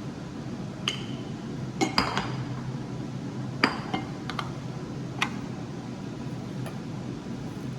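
Dishes and utensils clinking and knocking together, about nine light ringing clinks at irregular intervals, the loudest about halfway through, over a steady low hum.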